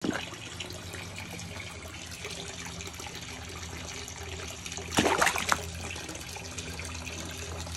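Aquarium filter return trickling and splashing steadily into the tank water over a low steady hum. About five seconds in comes a brief loud splash at the water surface.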